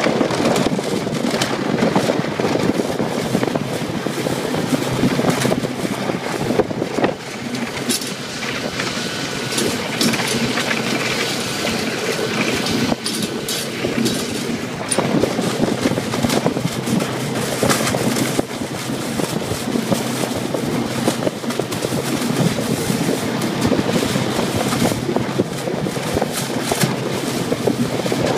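Snowmobile running at speed over a rough snow track on ice: steady engine and rushing noise with constant knocking and rattling as the machine and its towed wooden sled bounce over the bumps.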